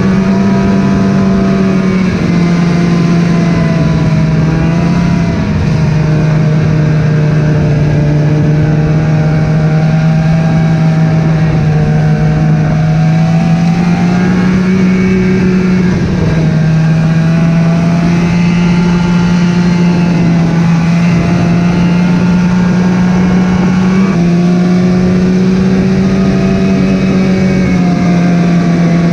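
Snowmobile engine running steadily at speed, its pitch stepping up and down slightly a few times as the throttle changes.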